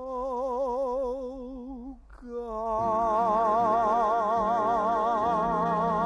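Sung held notes with wide vibrato: one long note, then about two seconds in a louder held note from a male singer as orchestral accompaniment comes in beneath it.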